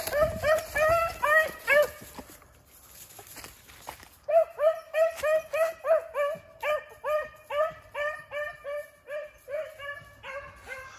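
Beagle barking in short, evenly spaced yelps, about three a second, while trailing a rabbit. The barking breaks off for about two seconds and picks up again, running on to near the end.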